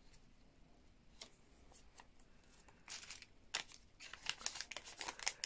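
Plastic packaging crinkling in the hands: a few seconds of near quiet, then a string of small crackles and clicks from about three seconds in as a small bag is handled and opened.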